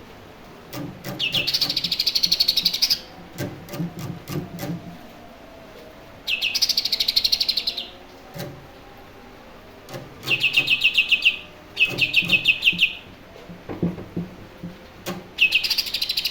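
Cucak ijo (green leafbird) singing: five bursts of fast, evenly pulsed high chirps, each lasting one to one and a half seconds, with short pauses between them. Faint clicks and low knocks sound between the bursts.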